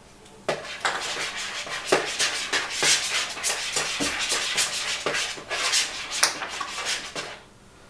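A utensil clattering and scraping in a pan or bowl, a quick irregular run of clinks and scrapes that starts about half a second in and stops shortly before the end.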